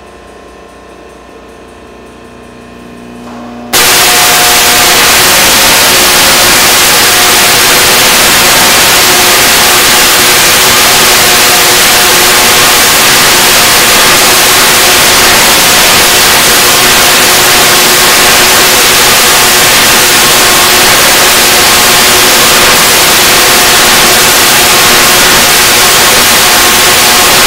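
Project Gemini bipolar Tesla coil firing: after a few seconds of low hum, a loud, steady noise of arcing discharge starts suddenly about four seconds in and runs on without a break.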